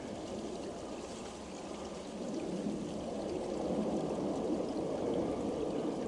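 Steady rushing of water flowing in a small drainage channel, getting a little louder about two seconds in.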